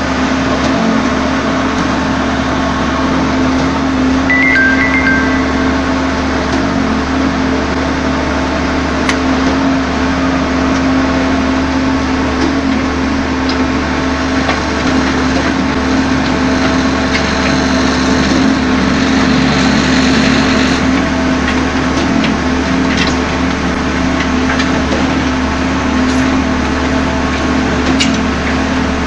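Concrete mixer pump's engine running steadily, with a constant hum and a few light clicks or knocks scattered through.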